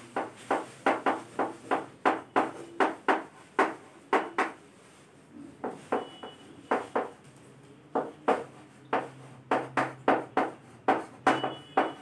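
Chalk writing on a chalkboard: a quick run of short taps and scrapes as capital letters are printed stroke by stroke, with a pause of about a second near the middle.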